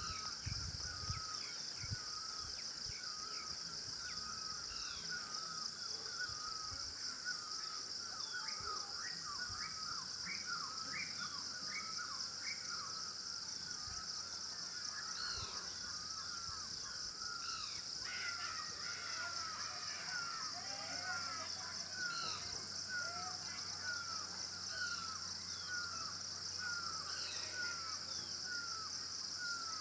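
Birds calling with short, quickly repeated notes, about one to two a second, over a steady high-pitched drone of insects.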